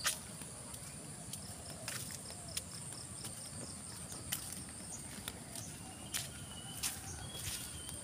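A steady, high-pitched chorus of insects in open rice-field country, with a run of short high pips, about three a second, in the first half. Scattered sharp clicks and taps, like footsteps on a dirt path, punctuate it.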